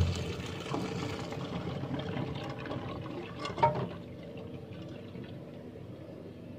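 Hot cooking water poured from a pot through boiled sweetcorn kernels into a plastic colander in a stainless steel sink, splashing and draining away. There is a knock about three and a half seconds in, and then the sound dies down.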